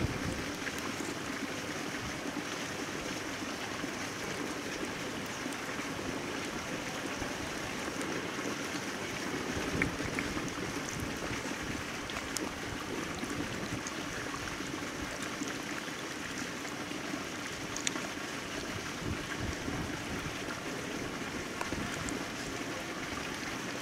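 Steady outdoor rushing noise with a few faint clicks scattered through it.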